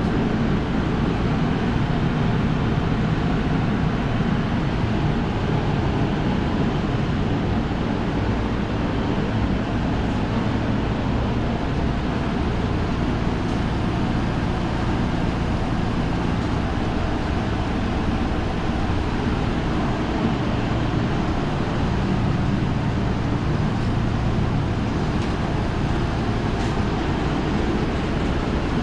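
Steady, loud machinery noise in a mechanical room, with a constant low rumble and no change in level.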